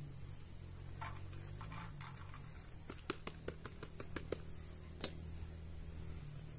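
A spatula scraping cooked rice out of a plastic colander and tapping against its rim and the pan, with a quick run of light clicks about three seconds in, over a steady low hum.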